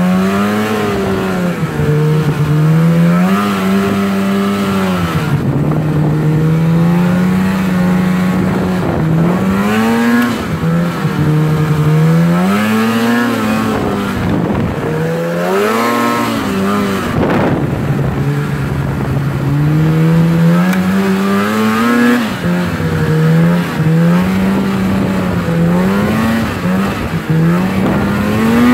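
Snowmobile engine running at speed along a trail, its pitch rising and falling again and again as the throttle is opened and eased off.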